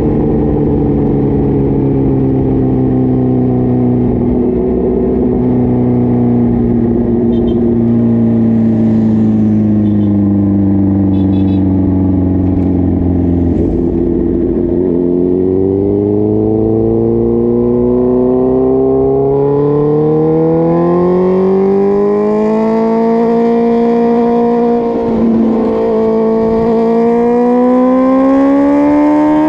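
Suzuki GSX-R1000 K5 inline-four engine running, its pitch falling slowly over the first half, then climbing steadily. About 25 seconds in it dips briefly with a gear change and climbs again.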